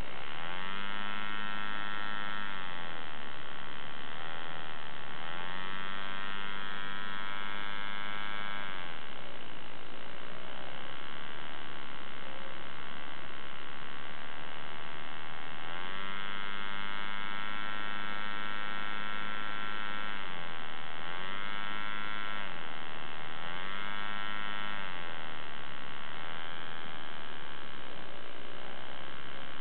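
WOHM 10cc radial model diesel engine running with a high buzz, its speed repeatedly rising and falling: it picks up for a few seconds, drops back, and surges up again several times, with a longer slower stretch in the middle.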